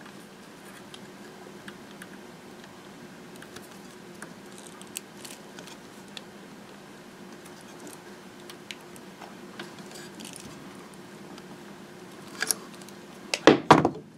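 Small clicks and rustles of a crimped spade terminal and wire being handled at a compressor start relay, over a low steady hum. Near the end a few louder sharp clicks as the terminal is pushed onto the relay's spade tab.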